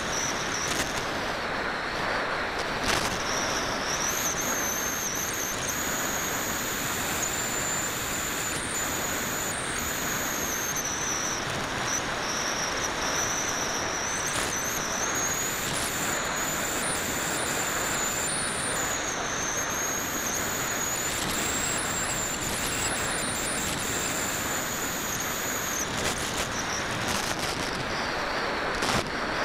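Wind rushing over a Parkzone Radian model glider's onboard camera in flight, a steady hiss. A thin high whine wavers in pitch above it.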